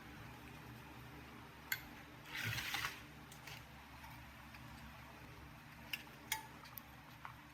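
Metal parts and tools being handled on a workbench: a few light metallic clinks and a short scraping rustle about two and a half seconds in, over a steady low hum.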